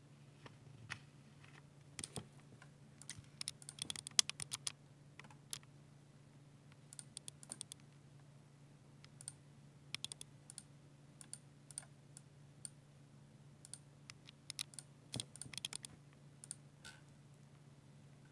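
Typing on a Ducky 60% mechanical keyboard with silver linear switches: irregular key clacks, with quick runs of keystrokes about four seconds in and again near fifteen seconds, and short pauses between.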